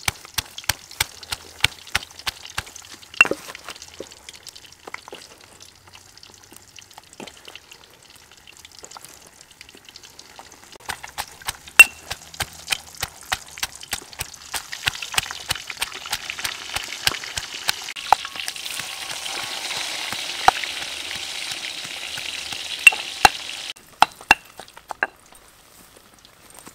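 Stone pestle pounding garlic and chili in a stone mortar: a run of sharp, repeated knocks, quick at first and then more spaced. A steady hiss runs under the pounding through the second half and stops suddenly near the end.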